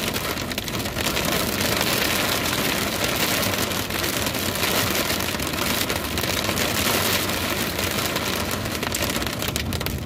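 Hail beating on a car, heard from inside: a dense, steady clatter of countless small impacts mixed with rain.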